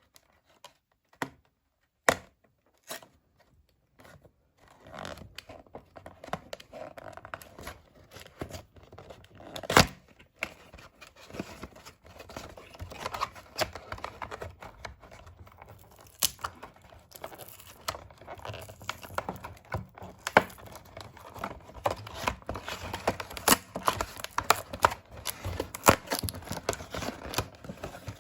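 Doll packaging being torn open and crinkled by hand, with sharp clicks and snaps. A few separate clicks come first, then continuous tearing and crinkling from about five seconds in.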